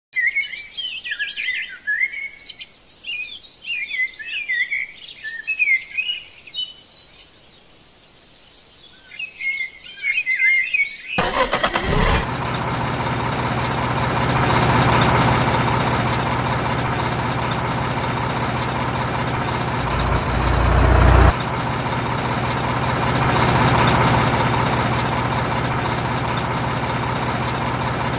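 Birds chirping for about the first ten seconds. Then a steady vehicle running sound sets in as the toy dump truck drives, with a brief deeper surge about twenty seconds in.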